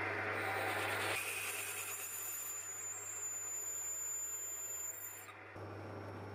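Metal lathe running while a twist drill in the tailstock bores into a brass bar, with cutting noise at first and then a thin, steady high-pitched whine during the drilling. The sound drops about five and a half seconds in as the chuck comes to rest.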